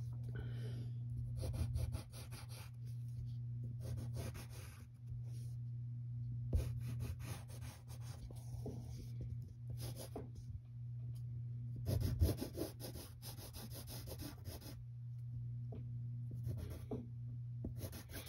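Yellow wooden pencil sketching on paper: stretches of quick, scratchy graphite strokes a few seconds long, broken by short pauses, over a steady low hum.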